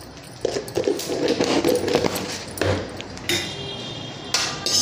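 Cumin seeds sizzling and crackling in hot oil with whole spices in a kadhai: the tempering is ready. A steel ladle strikes the pan with a ringing clink about three seconds in and again near the end.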